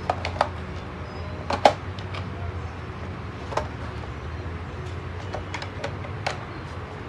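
Scattered sharp plastic clicks and knocks as a battery pack is fitted into a toy remote-control car's battery compartment, the loudest about one and a half seconds in, over a steady low hum.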